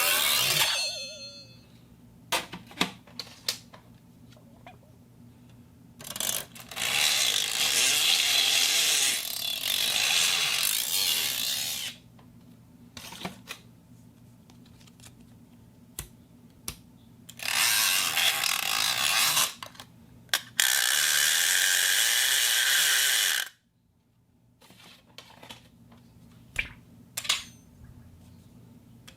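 A steel sheet worked for foley sounds: several long, harsh metallic noises of a few seconds each, separated by scattered clicks and knocks.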